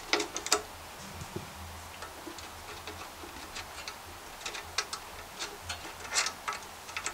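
A socket wrench's ratchet clicking in short, irregular runs of sharp ticks as a 10 mm bolt is backed out on a small engine.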